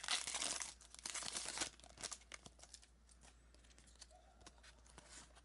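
Foil wrapper of a trading-card booster pack being torn and crinkled by hand. The dense crackling thins after about two seconds to a few small rustles and clicks.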